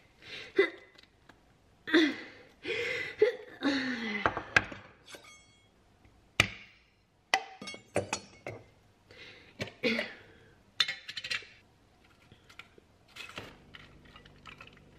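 Kitchen handling sounds of a glass salsa jar being opened and used. The metal lid is twisted off, and the jar clinks and knocks against the counter and the plate in a string of sharp clicks, with short rustling stretches between them.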